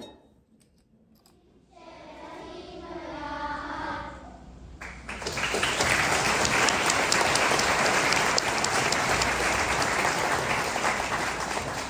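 A choir sings a short closing phrase, then about five seconds in the audience breaks into applause, which is steady and loudest through the rest, easing off near the end.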